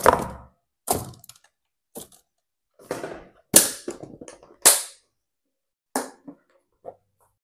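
A series of sharp knocks and clatters from household objects being handled and set down in a kitchen, spaced roughly a second apart, the two loudest a little past halfway.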